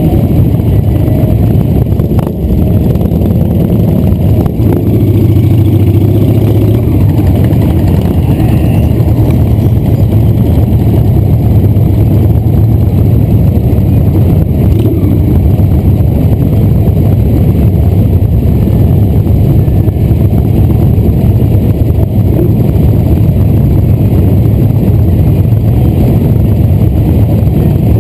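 Motorcycle engines running at low speed in slow, crawling traffic: a loud, steady low rumble from the riding bike and the cruisers close around it.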